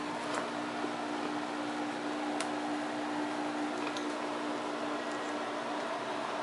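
Steady machine hum with a constant low drone and fan-like noise, crossed by a few faint light clicks.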